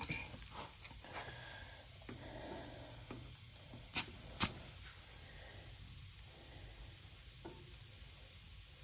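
Two short, sharp hisses of air about half a second apart as a stick tire pressure gauge is pressed onto a tire's valve stem to read the pressure, after a few small handling clicks.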